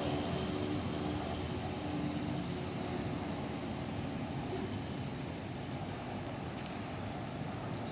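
A steady, distant engine drone that slowly fades, with a faint hum in the first few seconds.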